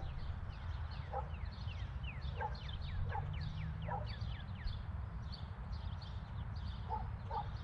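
Outdoor birdsong: a run of quick, repeated descending chirps, densest in the first half, over a steady low rumble.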